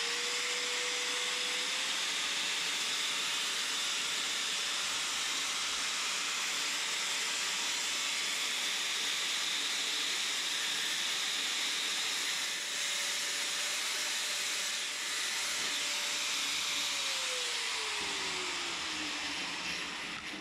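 DeWalt angle grinder running with a cutting disc, cutting through a flat metal earthing strip: a steady high whine over a harsh hiss. About 17 s in the motor is switched off and its whine falls away as the disc spins down.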